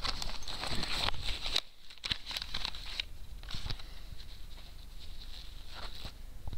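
Close handling noise: vest fabric rustling and a plastic blister pack holding a pike float being handled, with scattered light clicks and rubbing. It is louder for about the first second and a half, then drops to softer rustles and clicks.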